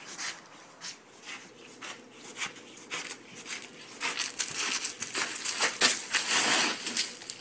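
Footsteps crunching and rustling in dry fallen leaves, irregular crackly steps that grow denser and louder about four seconds in.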